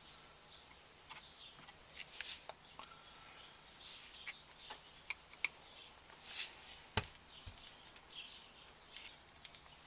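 Light handling noises while black powder is measured out for a lifting charge: scattered small clicks and a few short rustles, with one sharper click about seven seconds in.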